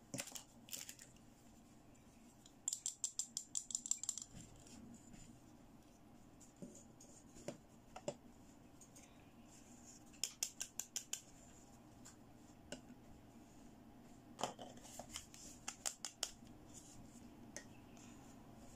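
Small hard plastic toy pieces clicking and tapping as they are handled and set down, with three runs of rapid clicks: one a few seconds in, one about ten seconds in and one near the end.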